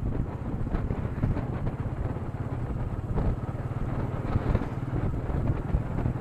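Royal Enfield Meteor 350's single-cylinder engine running steadily at cruising speed with a fast, even low thrum, heard through an action camera's built-in microphone while riding.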